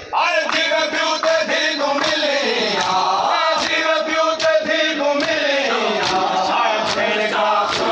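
Men's voices chanting a noha, a Shia Muharram lament, in unison. A steady rhythm of chest-beating slaps (matam) keeps time with it.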